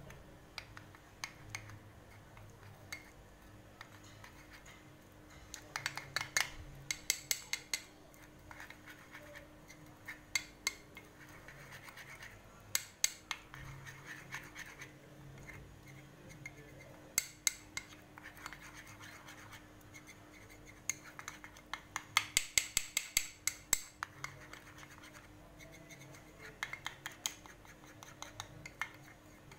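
A metal spoon stirring and scraping around a small ceramic bowl, mixing cornstarch into honey, in several runs of quick clinks and scrapes with short pauses between.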